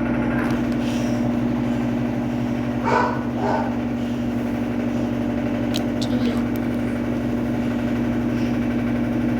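Electrolux Turbo Economia 12 kg (LTE12) washing machine in its final spin at 720 RPM: a steady motor hum with the drum turning at full speed.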